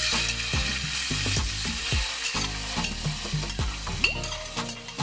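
Canned tuna sizzling as it fries in hot cooking oil in a pan. The sizzle is loudest in the first second, just after the tuna goes into the oil.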